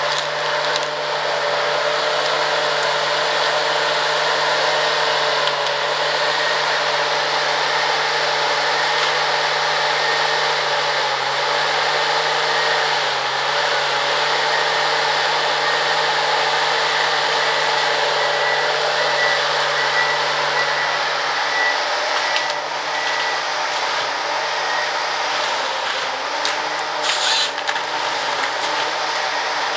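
Ponsse Ergo forest harvester's diesel engine and hydraulics running steadily as its crane swings the harvester head, the engine note dipping briefly now and then under load. A short crackle near the end.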